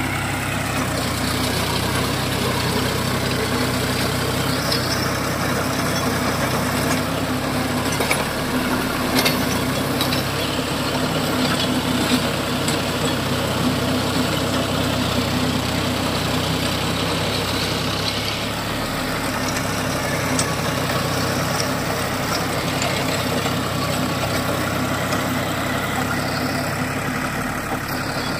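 John Deere tractor's diesel engine running steadily under load, driving a rotavator that churns through dry soil, with a few short sharp knocks about a third of the way in.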